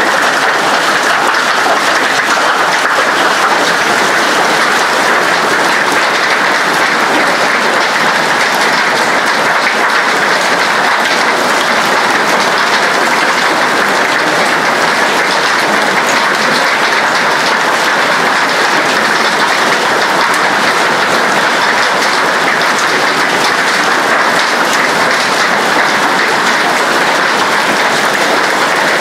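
Hail and heavy rain pelting paving and a roof: a loud, steady, dense rush of countless small impacts that does not let up.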